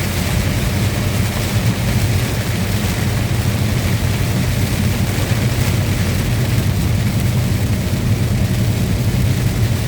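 Steady engine drone and tyre noise heard from inside a truck's cab while driving on a wet road, a constant low hum under an even hiss.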